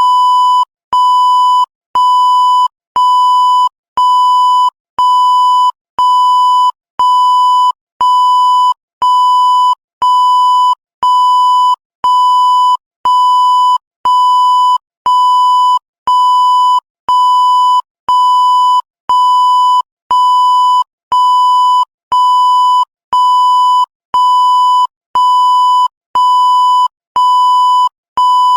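Electronic beep tone at one steady pitch, repeating evenly about once a second. Each beep lasts most of the second and is separated by a brief gap, with a small click as each starts.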